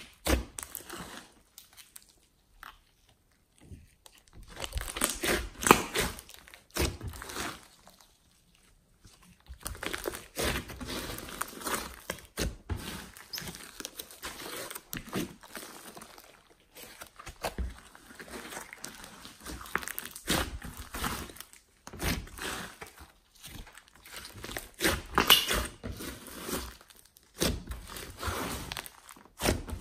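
Hands kneading and squeezing a large mass of slime mixed with clay, glitter and foam beads, giving irregular squishing and crackling. There are two short pauses, near the start and about a third of the way in.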